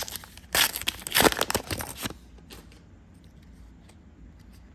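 Foil booster pack wrapper crinkling and tearing for about a second and a half, then a few faint ticks of card handling.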